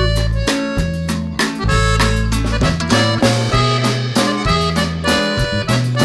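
Upbeat instrumental background music: held melody notes over a changing bass line, with a steady beat.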